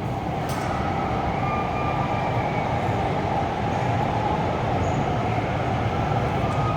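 Metro train running, a steady rumble with a faint whine on top and a single click just after the start.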